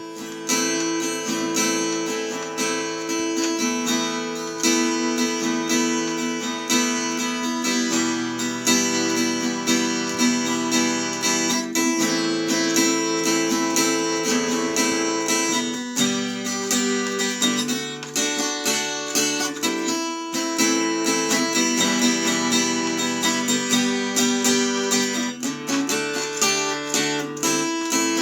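Acoustic guitar music, strummed chords changing every few seconds in a steady rhythm.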